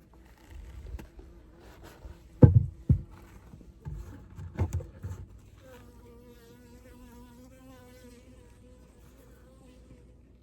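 A honeybee buzzing close by as a steady, slightly wavering hum, starting a little past halfway and lasting about five seconds. Before it come a few sharp knocks, the loudest sounds.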